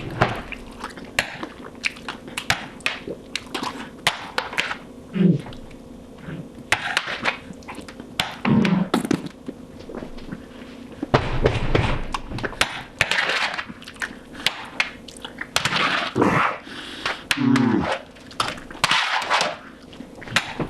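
Fast eating with a spoon: many short knocks and scrapes of the spoon against the container as the last of the chili and cheese is scooped up, with chewing sounds and a few short grunts.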